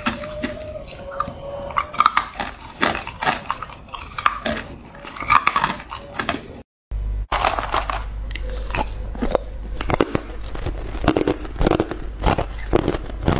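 Close-miked crunching of hard clear ice cubes being bitten and chewed, in dense irregular cracks. The sound breaks off briefly about halfway, then the crunching resumes over a low steady hum.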